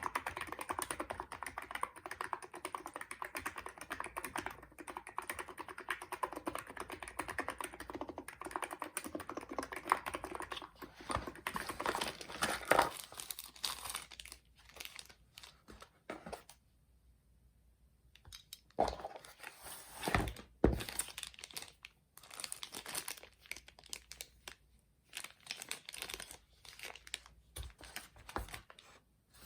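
Fast, continuous typing on a Hansung electrostatic-capacitive keyboard with light 35 g switches for roughly the first ten seconds. Then come sparser, louder clatters and rustling, with a brief quiet pause about two-thirds of the way through.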